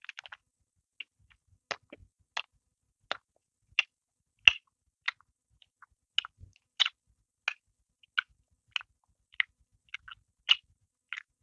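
Close-miked mouth sounds of a bread roll being bitten and chewed: sharp wet clicks and smacks at a steady chewing pace, about one every two-thirds of a second, one louder than the rest about halfway through.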